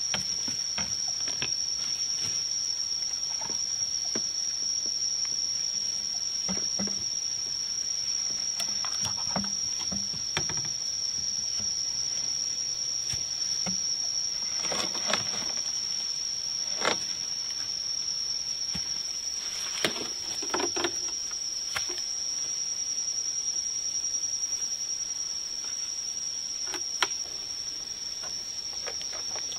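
A steady, high-pitched insect drone, one unbroken tone, with scattered knocks, clacks and rustles from bamboo poles being handled and fitted against a tree trunk.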